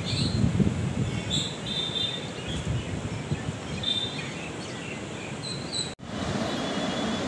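Gusty wind rumbling on the microphone, with birds chirping in short high notes several times. About six seconds in the sound drops out for an instant, and a steadier rushing noise follows.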